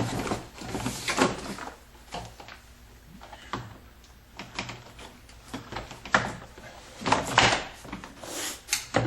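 2011 Ford Fusion's plastic interior door panel being pressed back onto the door: a series of knocks and thumps as its white plastic retaining clips are pushed into their holes. The hardest knocks come about a second in and again around seven seconds in.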